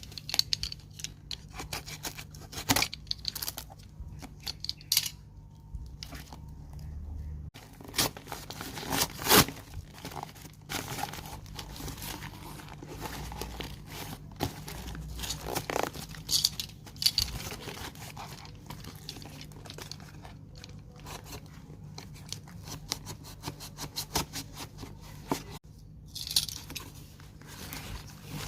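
Parcel packaging being torn open and crumpled by hand: irregular rips, crinkling and sharp crackles, the loudest rip about nine seconds in, over a low steady hum.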